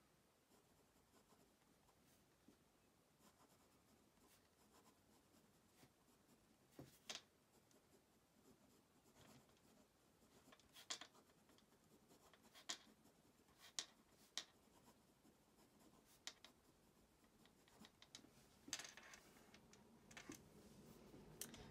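Faint scratching of a Pilot Custom 823 fountain pen's fine gold nib writing on Rhodia notepad paper, with a few light ticks spread through the middle of the stretch.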